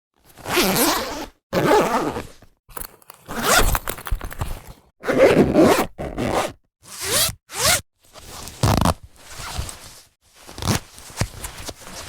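A zipper being pulled open and shut over and over, in about a dozen quick strokes, each under a second to a second long, with short pauses between them.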